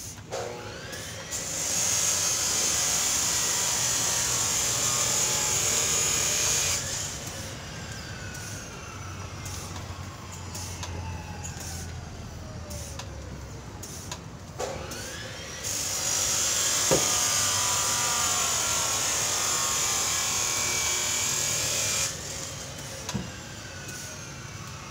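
A power tool's motor runs with a loud high hiss for about five seconds, cuts off and winds down in slowly falling whines. About midway it spins up again, runs about six seconds and winds down once more.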